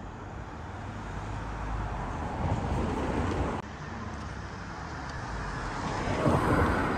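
Road traffic passing: a steady hum of car and tyre noise that swells twice as vehicles go by, with a sudden drop about three and a half seconds in where the recording cuts.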